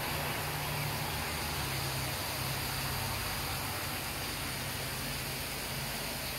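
A steady, even hiss with no distinct events, carrying a faint low hum through the first three seconds or so.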